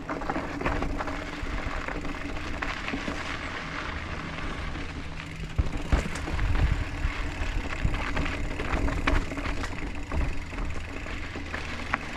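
Mountain bike rolling over a dirt trail, heard from a back-mounted action camera: steady tyre rumble and wind noise with scattered rattles and knocks from the bike. There is a burst of heavier jolts about six seconds in.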